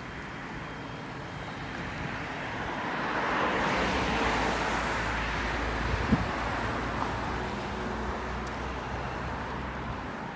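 Roadside traffic: the noise of a passing vehicle swells to a peak about four seconds in and fades away over the rest, over a steady background of road noise. A single brief knock sounds about six seconds in.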